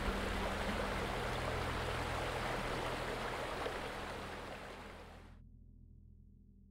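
Water rushing along the hull of a motor yacht under way, over a low steady hum. It fades out about five seconds in.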